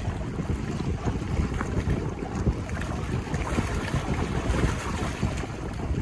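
Wind blowing hard on the microphone, mostly a low rumble, with choppy waves lapping and splashing against shoreline rocks.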